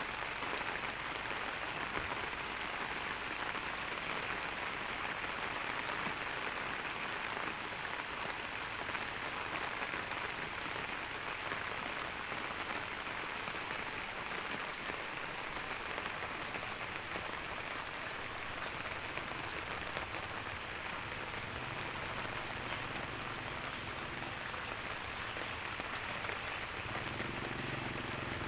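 Steady rain falling and pattering on surfaces, an even hiss throughout. In the last several seconds the low hum of an engine comes in faintly and grows.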